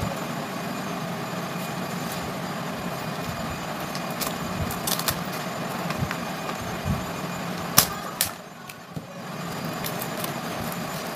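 Clear plastic shrink-wrap on a small cardboard product box being cut with scissors and peeled off, with a few sharp crackles and clicks, the loudest a little under two-thirds of the way in. A steady background noise runs underneath and drops away briefly near the end.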